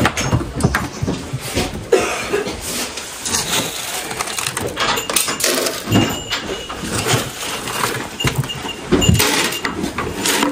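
Knocks and clatter as a plastic feed tray holding pelleted feed is handled and moved, in a series of irregular short bumps and rattles.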